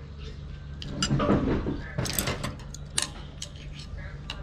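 Chopsticks and a spoon clicking and scraping against bowls while noodles are eaten, over a steady low hum.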